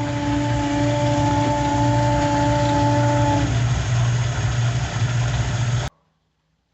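1962 Bendix Economat washing machine running during its drain stage: a steady motor-and-pump hum with a whine over it that drops out about three and a half seconds in. The sound cuts off abruptly near the end.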